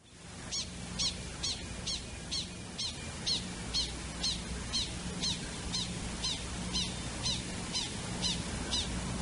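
Prairie dog alarm call for a coyote: a steady train of short chirps, each about a tenth of a second long, repeated about twice a second, over a low steady hum.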